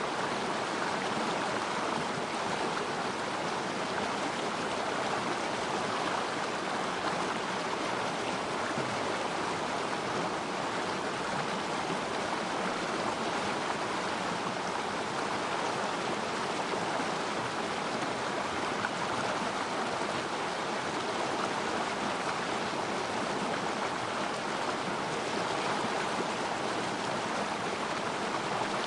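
Small river stream flowing over rocks: a steady, even rush and babble of water.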